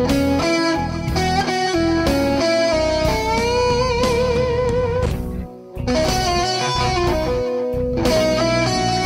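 Electric guitar playing a blues turnaround lick in E, single notes with half- and whole-step string bends. About three seconds in, one note is bent up and held with vibrato, and the playing breaks off briefly a little past halfway.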